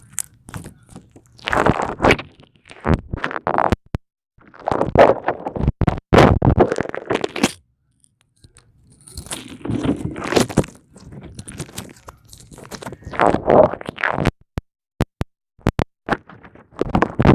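Red glitter-glue slime being squeezed and stretched by hand, in bursts of squishing and crackling with sharp pops. There is a short quiet pause about halfway through, and a run of single sharp pops later on.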